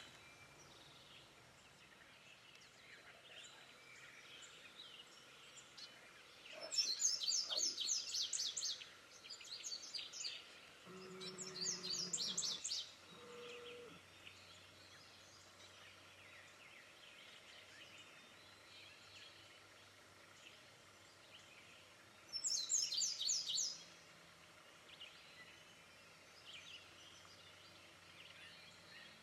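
A bird calling in short, rapid rattling bursts: three close together, then one more near the end.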